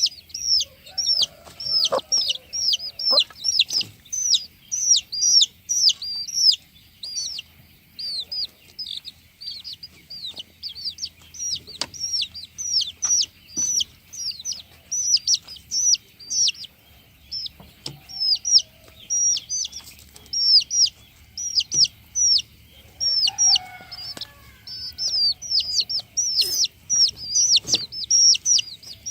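A crowd of young broiler chicks peeping without pause: rapid, high-pitched peeps, several a second. A few lower clucks about a second in and again near the 23-second mark, with scattered short taps.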